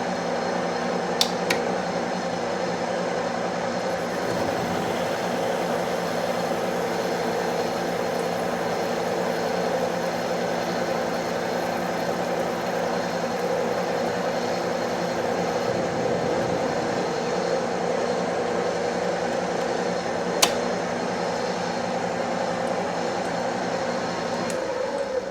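Metal lathe running steadily while facing off the end of a 1-inch round steel bar: an even motor and gear whine, with a few sharp ticks about a second in and again near the end.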